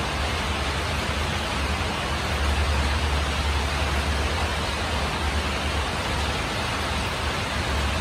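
Steady rain falling on a tin roof, an even hiss with a low rumble underneath.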